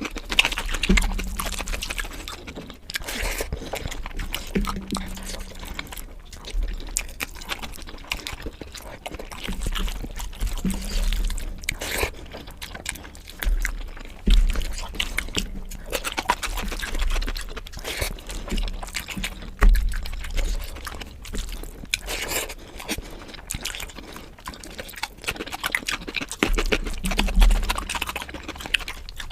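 Close-miked eating sounds: irregular wet chewing, smacking and mouth clicks, with soft low bumps in between.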